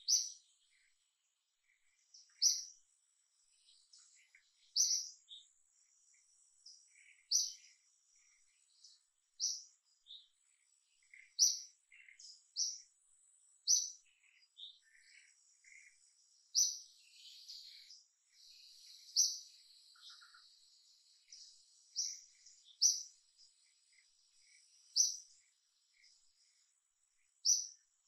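A bird calling outdoors: a short, sharp, high chirp repeated about every two to three seconds, with fainter chirps in between and a faint steady high-pitched tone underneath.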